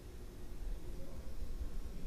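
Faint low rumble of room ambience in a large hall, steady with no distinct events, slightly louder about halfway through.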